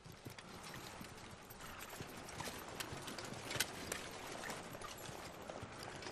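Many hooves clopping irregularly on the ground, with a sharper knock about three and a half seconds in.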